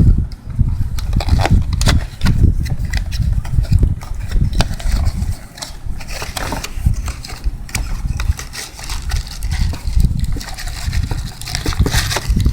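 Irregular clicks, knocks and rubbing of plastic and metal parts as a fuel pump is worked out of its assembly by hand, over a low rumble of handling on the microphone.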